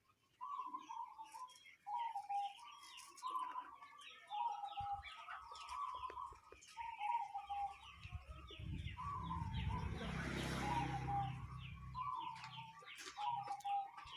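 Zebra dove (perkutut) cooing in repeated short phrases with an unusual-sounding call, while smaller birds chirp faintly. A low rumbling noise swells in the middle and fades out about two seconds later.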